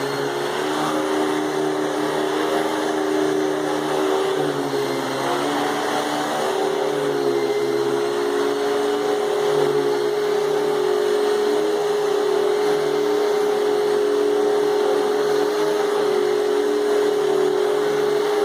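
Hoover Spectrum canister vacuum running steadily, a held motor tone over the rush of air, its pitch dipping slightly and recovering several times as the load changes.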